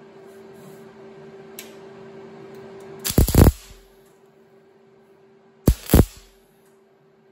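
MIG welder laying two short tack welds on a sheet-metal body panel: brief crackling bursts of the arc, the first about three seconds in and the second near six seconds, each about half a second long and made of two or three quick zaps. A steady low hum runs before the first tack.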